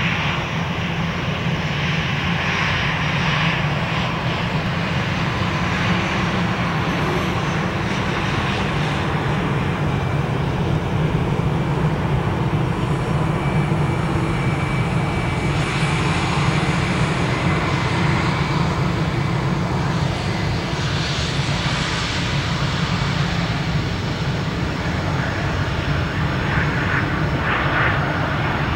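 Airbus A320 on final approach, its jet engines at low approach power making a steady rumbling rush.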